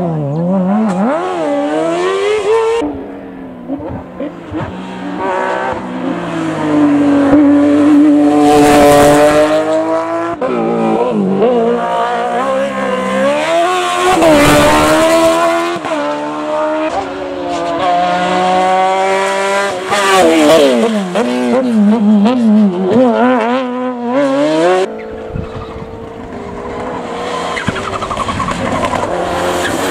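Several competition cars on a hillclimb in turn, engines revving hard, the pitch climbing and dropping with each gearshift and lift. Near the end a Mitsubishi Lancer Evolution VI rally car accelerates past on its turbocharged four-cylinder.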